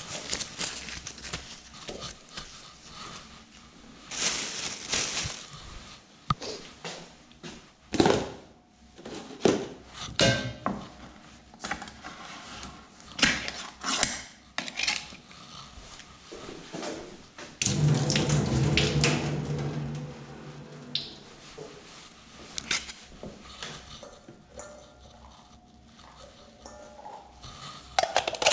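A metal spoon scraping and clinking against a tin can while scooping out canned green peas, with scattered knocks of utensils and the can on the worktop. A steady hum sounds for about two seconds a little past the middle.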